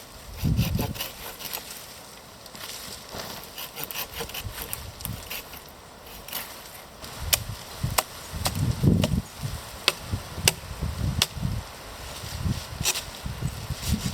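Wood being worked by hand, as when processing firewood: irregular sharp cracks with dull knocks among them, the heaviest about half a second in and again about two-thirds of the way through.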